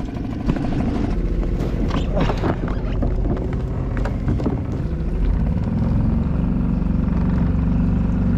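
Suzuki 2.5 hp four-stroke single-cylinder outboard running as the kayak gets under way, with a few knocks near the start. The engine note grows stronger and steadies about five to six seconds in as the boat picks up speed.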